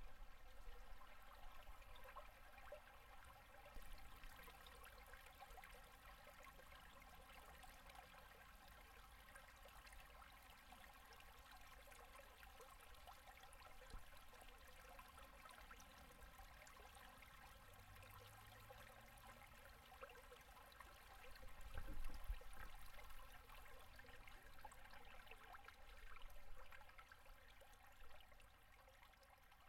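Faint running water of a low winter river gurgling over and under its ice, a steady soft wash. A single low thump about two-thirds of the way through.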